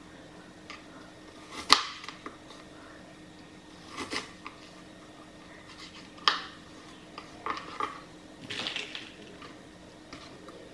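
Kitchen knife slicing a peeled onion on a plastic cutting board: a few sharp taps of the blade on the board a couple of seconds apart, then a quicker run of smaller cuts near the end.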